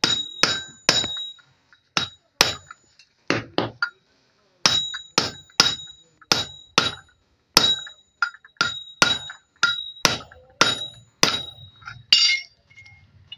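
Hammer tapping a metal tube set over the end of a camshaft, about two dozen light, uneven taps, each with a short metallic ring, driving the camshaft and its cam gear together on the key; the tube keeps the shaft's end from mushrooming. A brief metal clink comes near the end.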